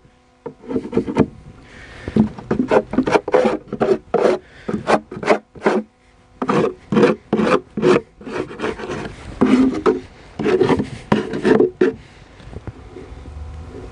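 Steel hive tool scraping the inside of an empty wooden beehive box, in quick rasping strokes about two a second with short pauses, stopping near the end. The scraping loosens dirt, wax and propolis from the scorched wood, a step in cleaning the hive.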